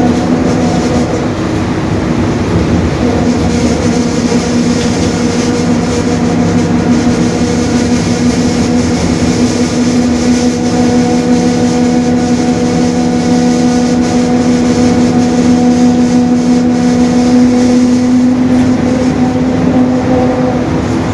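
Mercedes-Benz OF-1721 Bluetec 5 bus running at a steady speed: diesel running and road rumble, with a steady drone of unchanging pitch from the differential, louder in the second half.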